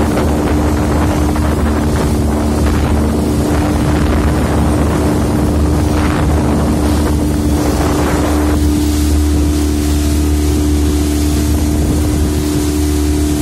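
Small outboard motor driving an open motorboat under way, running with a steady drone, with wind on the microphone and water rushing past the hull. The hiss of wind and water eases a little about eight seconds in while the engine note holds steady.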